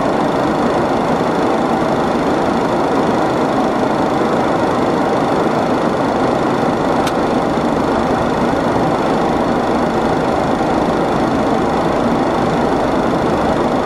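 Steady cabin noise of a Boeing 737 in flight: an even rush of airflow and jet engines with a faint steady high whine. There is one brief click about seven seconds in.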